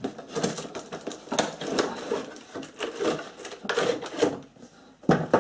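A cardboard box and its clear plastic bottle tray being handled: irregular crackling, scraping and clicking of card and thin plastic as the tray is slid out of the box.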